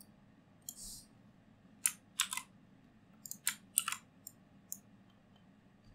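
Sharp clicks from a computer mouse and keyboard: about ten clicks in irregular clusters, with a brief scrape about a second in.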